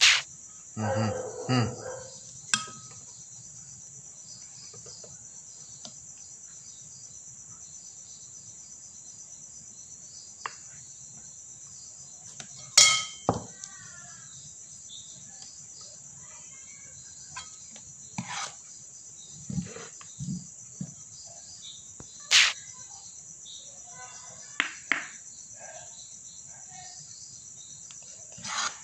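Steady high-pitched chirring of crickets. Scattered sharp clinks of a metal ladle against china cups and a bowl, the loudest about thirteen and twenty-two seconds in.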